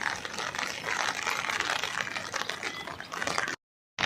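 Rain falling, a steady crackling patter with many small ticks, which cuts out abruptly for a moment near the end.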